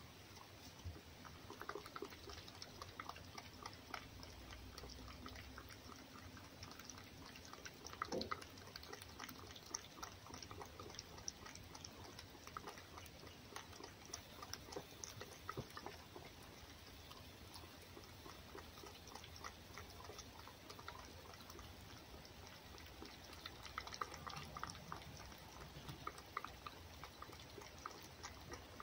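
A fox eating egg from a bowl, lapping and chewing: faint, rapid wet clicks and smacks, a little louder now and then.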